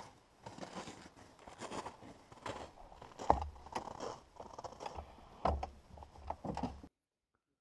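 Irregular crunching footsteps on a snowy dirt trail, with two sharper knocks carrying a dull thump about three and five and a half seconds in. The sound cuts off suddenly near the end.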